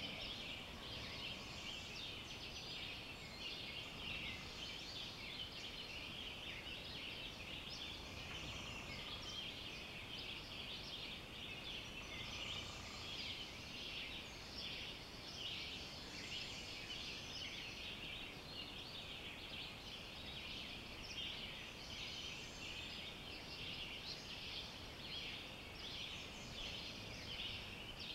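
Dawn chorus of many woodland birds singing at once, a dense, steady mix of high-pitched chirps and trills, with a few faint lower single notes now and then.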